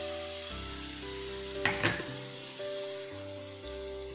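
Wet ground coconut paste sizzling as it drops onto hot oil and fried masala in a stone pot, with two quick knocks about two seconds in. Soft background music with held notes plays underneath.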